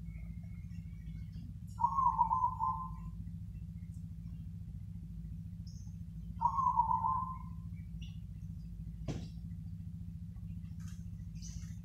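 Zebra dove cooing twice: two short rolling coos about four and a half seconds apart. A steady low hum runs underneath, and a single sharp click comes near the end.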